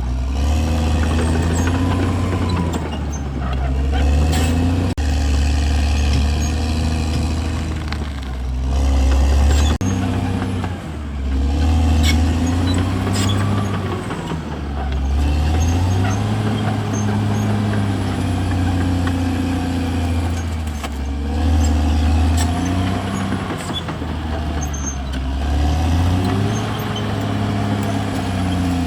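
CAT D6R XL bulldozer's diesel engine working under load, its pitch and loudness swelling and dropping every few seconds as the throttle and load change.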